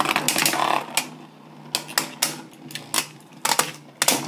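Two Beyblade spinning tops battling in a plastic Beyblade stadium: irregular sharp clicks and clacks as they strike each other and the stadium, dense in the first second and then every half second or so, over a faint steady whir of the spinning tops.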